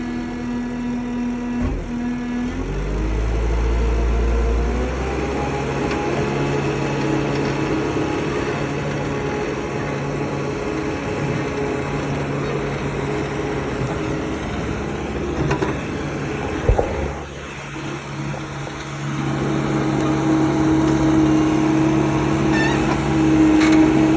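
Skid steer engine running hard, speeding up about two to three seconds in as it works on a tree stump. Around seventeen seconds there is a sharp knock and the engine briefly drops, then it speeds up again near the end.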